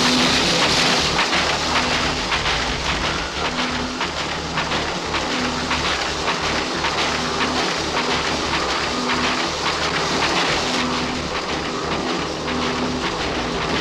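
Newspaper printing press running: a dense, steady mechanical clatter of rollers and paper, with a low note that recurs every second or so.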